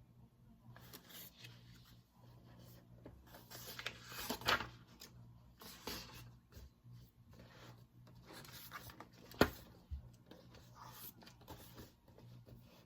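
Irregular rustling and scraping of paper and stationery being handled at a desk, with one sharp click about nine and a half seconds in.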